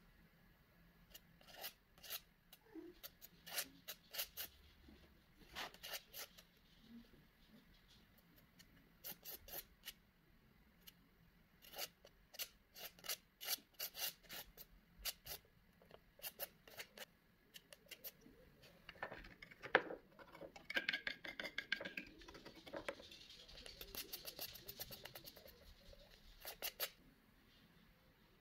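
Metal palette knife scraping and tapping on wet acrylic paint and paper in short, faint strokes, with a longer steady scrape near the end.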